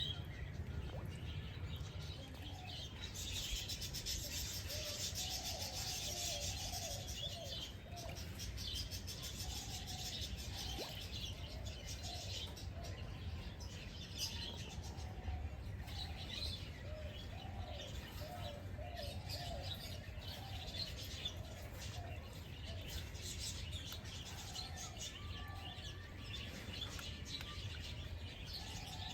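Several birds chirping and calling at once, short repeated chirps and warbles, with the densest high-pitched chirping a few seconds in, over a steady low background rumble.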